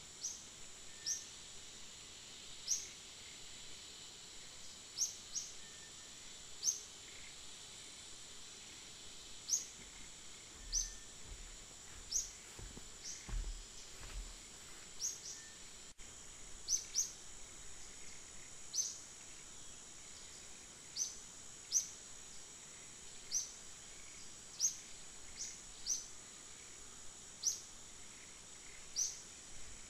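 Outdoor ambience: a steady high insect drone with short, high, falling bird chirps, one every second or two. A few low thumps come about halfway through.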